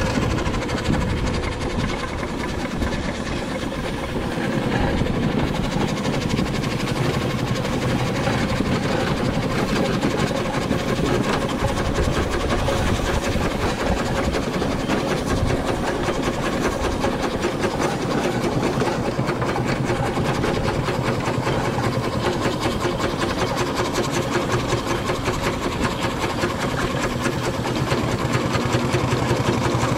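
3-inch scale Fowler R3 showman's steam engine under way, running with a fast, even beat and mechanical clatter from its motion. It gets a little louder near the end.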